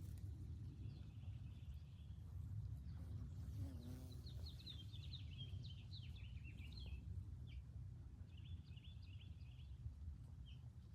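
Several songbirds chirping and trilling: a trill about a second in, a fast run of chirps in the middle and another short run near the end. A steady low rumble lies underneath.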